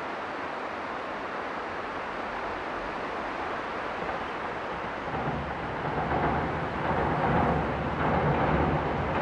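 A steady rushing background noise, then about five seconds in a KiHa 120 diesel railcar's engine comes in low and grows louder as the train approaches.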